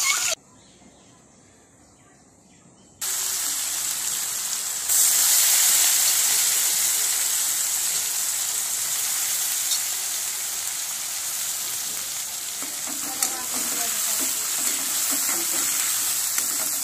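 Sliced onions sizzling steadily in hot oil in an aluminium kadai, starting abruptly about three seconds in after a near-silent moment. Near the end a spoon stirs them through the oil.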